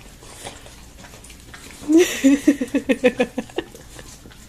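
Dog eating peanut butter and making a quick run of short pitched grunting noises, about six a second, starting about two seconds in and lasting a second and a half.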